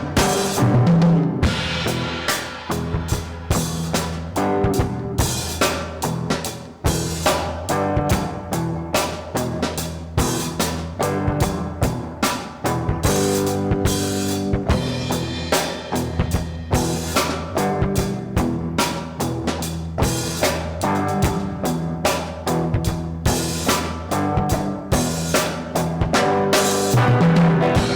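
Live music jam: a steady, regular drum-style beat with kick and snare hits under sustained pitched notes, likely guitar, built up on a loop pedal.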